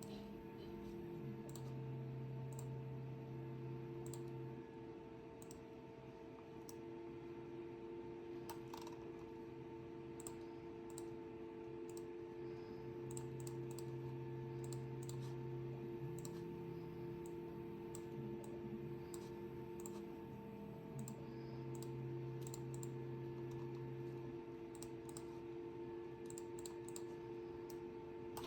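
Scattered computer mouse and keyboard clicks over a steady machine hum made of several held tones, some of which drop out and come back every few seconds.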